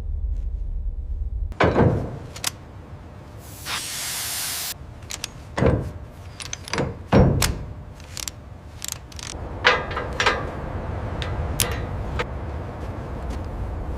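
Heavy mechanical clanks and thuds, the loudest three at about two, six and seven seconds in, with a short burst of hissing about four seconds in and smaller metallic clicks after, over a low rumble that drops away about a second and a half in.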